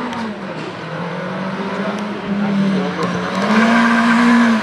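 Race car engine revving hard through a slalom course, its pitch dropping and climbing again several times as the throttle is lifted and reapplied. It gets louder about three and a half seconds in as the car comes closer.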